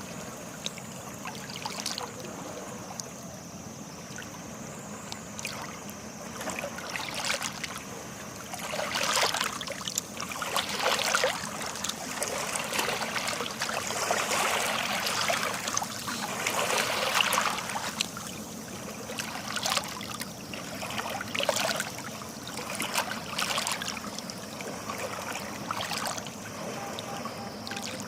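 Sea water lapping and splashing at the shore, with trickling and spattering, swelling in a few stronger surges.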